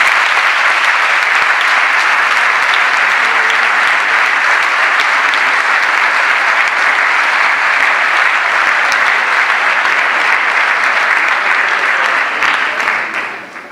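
Audience applauding, a loud, dense clapping that starts suddenly, holds steady for about twelve seconds and then fades out.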